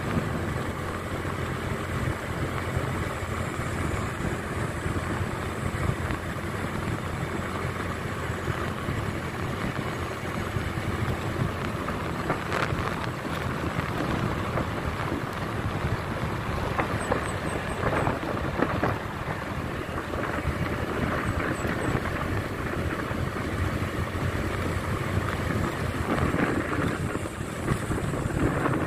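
Steady wind and road noise of a moving motorcycle, with the wind rushing over the microphone and the engine and tyres running underneath. There are a couple of brief knocks around the middle.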